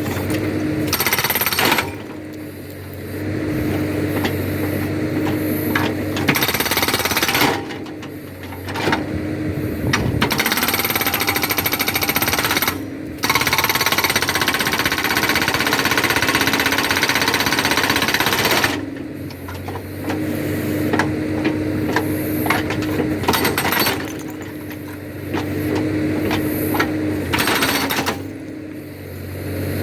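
Backhoe-mounted hydraulic rock breaker hammering rapidly in bursts of several seconds, stopping briefly about five times. The backhoe's engine hums steadily underneath, even in the pauses.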